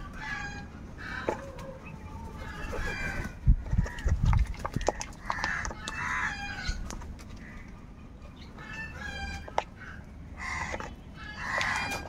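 Several house crows cawing, harsh calls coming in clusters throughout, over sharp clicks of beaks pecking at a plastic food bowl. A few loud low thuds come about four seconds in.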